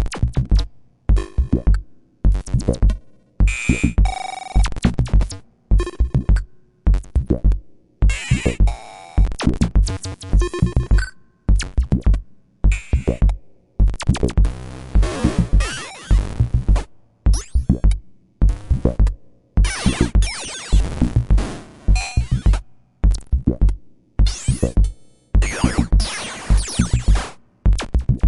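A run of cartoon "boing" spring sound effects played one after another, a little under one a second, each a springy wobbling tone that starts sharply and dies away, some sliding in pitch.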